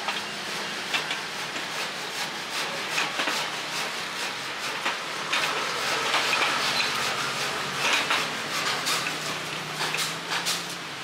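Hinged metal egg-cake mold plates clanking and clicking as they are turned and flipped by their handles: irregular metallic knocks, thicker in the second half, over a steady hiss.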